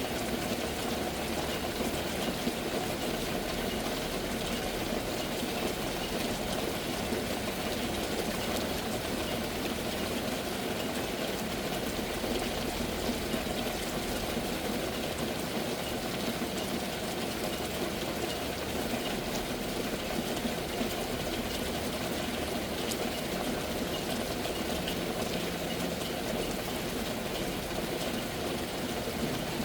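Rain falling steadily: an even, unbroken hiss with no change in strength.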